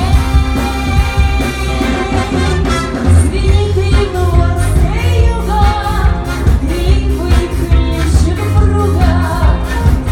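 A band playing a pop song with a vocalist singing over a heavy bass line and a steady drum beat.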